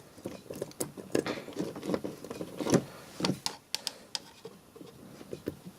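Irregular light clicks and taps as current leads are touched against the RCD module's trip coil; the coil does not snap the trip mechanism.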